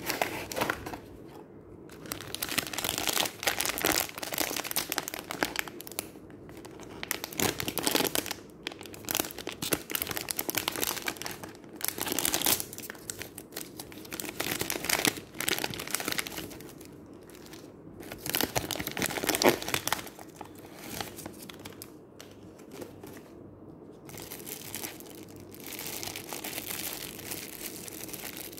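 Blind-box packaging handled and torn open by hand: a cardboard box and its foil inner bag crinkling and tearing in irregular bursts with short pauses between.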